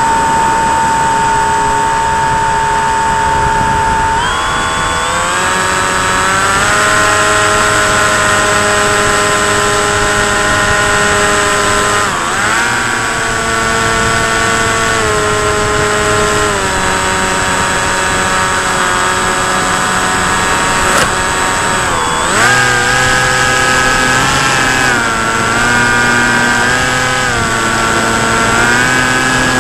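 Electric motor and propeller of a radio-controlled FPV plane whining as it flies, heard from the onboard camera. The pitch climbs around four seconds in, dips sharply twice as the throttle is chopped and reopened, and otherwise steps up and down with the throttle.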